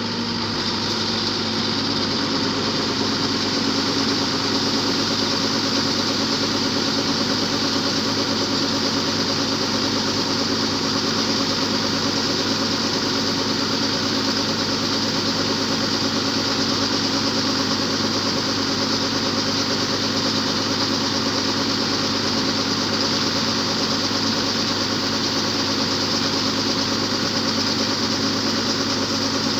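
World rice combine harvester running steadily while harvesting, a constant engine and machinery drone that grows a little louder over the first few seconds.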